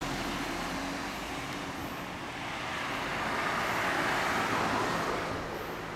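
Street traffic: a passing vehicle's noise swells to its loudest about four seconds in and then fades, over a steady background of traffic.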